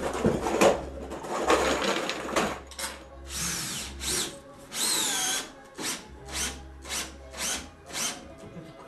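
Cordless drill-driver running in bursts: its motor whine rises and falls with the trigger, then comes in a row of short pulses about two a second as it drives into the timber joists.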